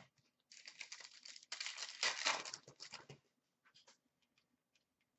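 Foil wrapper of an Upper Deck hockey card pack crinkling and tearing as it is ripped open, for about two and a half seconds and loudest around the middle, followed by a few faint ticks.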